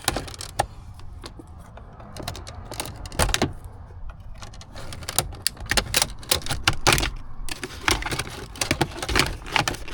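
Plastic dash trim on a 2001 Lexus IS300 being pried loose: a string of sharp clicks, snaps and rattles from the trim clips and panels, coming faster in the second half.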